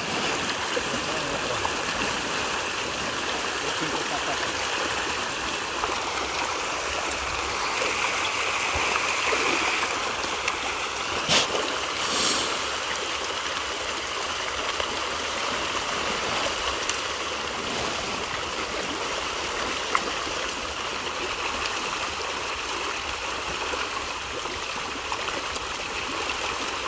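A dense mass of fish churning and splashing at a pond's surface in a feeding frenzy, a continuous rushing slosh of water. Two sharp knocks about a second apart near the middle.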